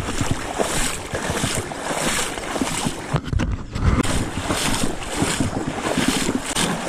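Water sloshing and splashing around the legs of a person wading step by step through a shallow river, in uneven surges with a short lull about halfway through, with wind buffeting the microphone.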